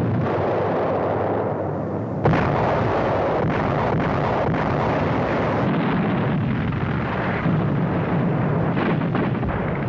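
Bombs exploding one after another in a dense, continuous din, with a sudden sharp blast about two seconds in.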